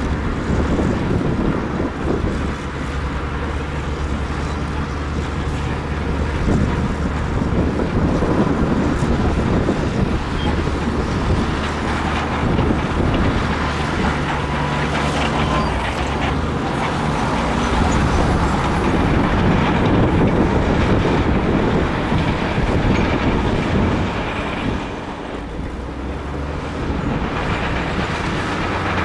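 Big bulldozer's diesel engine working under load as it pushes stone, its pitch and level rising and easing every few seconds over a broad grinding noise, dropping back for a few seconds near the end.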